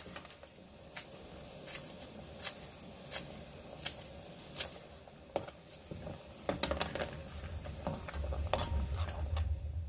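A metal utensil clinking and tapping against a cooking pot in scattered single taps, which come faster over the last few seconds, with a low rumble building near the end.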